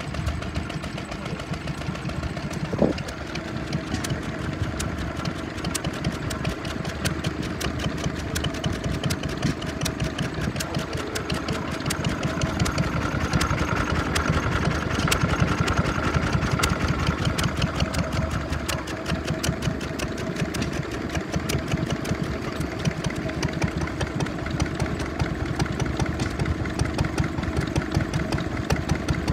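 Vintage stationary engines running steadily with a rapid, even beat. There is one sharp click about three seconds in.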